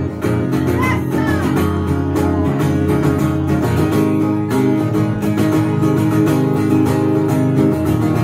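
Acoustic guitar strummed in a steady rhythm, chords ringing on between the strokes: an instrumental passage of a song with no singing.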